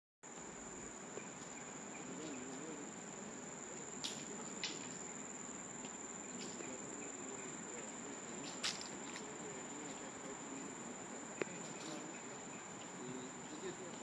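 Steady high-pitched drone of forest insects, one unbroken tone, with a few faint clicks along the way.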